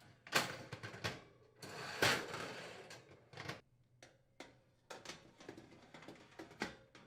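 Metal oven racks being slid into the oven of a double oven electric range: clinks and knocks of wire against the rails, with a longer scrape about two seconds in.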